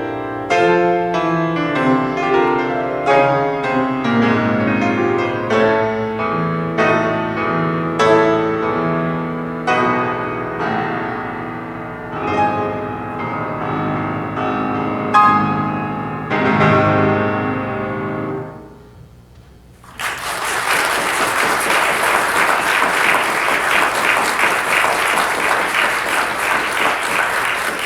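Solo piano playing a slow, chordal piece with a moving bass line, ending on a held chord that dies away about two-thirds of the way through. After a brief pause the audience breaks into steady applause.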